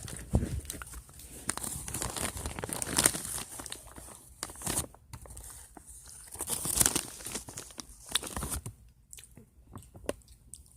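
Crunching and crinkling close to the microphone, someone chewing crunchy food, thinning to scattered clicks near the end.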